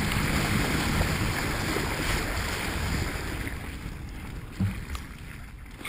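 Wind buffeting the camera microphone along with the fat bike's tyres rolling through a wet, puddled trail: a steady rushing noise that fades out gradually, with a single thump near the end.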